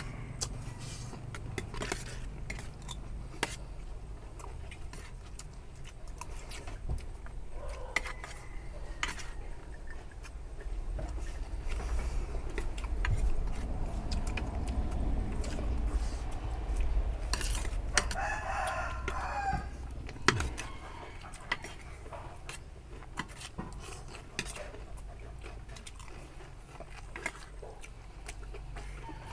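A rooster crowing partway through, over short clinks of spoons against plates as people eat.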